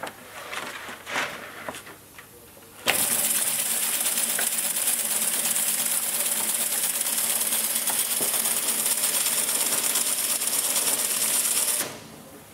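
Kuper FWJ/920 veneer splicer joining two veneer sheets: a few light clicks as the veneer is laid in, then about three seconds in the machine starts and runs with a steady, rapid sewing-machine-like clatter and a loud hiss. It stops abruptly near the end.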